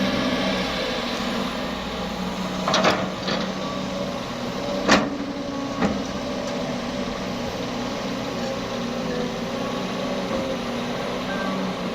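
Heavy-equipment diesel engine running steadily, with a few sharp knocks or clanks a few seconds in, the loudest about five seconds in.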